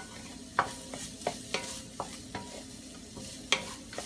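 Wooden spoon knocking and scraping against a nonstick frying pan as it stirs carrots and peas frying in oil, with a steady sizzle underneath. About ten uneven knocks, the pan ringing briefly after the sharper ones.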